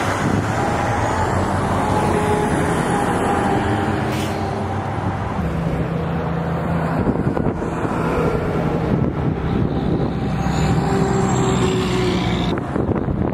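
Diesel engines of fire trucks running steadily under a constant loud rushing hiss, with the engine note shifting about five seconds in.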